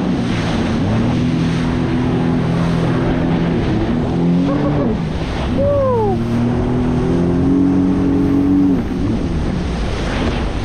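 Jet ski engine running hard at speed, with water spray and wind rushing past. The engine note dips and recovers a few times, climbs steadily, then drops to a lower note about nine seconds in as the throttle eases.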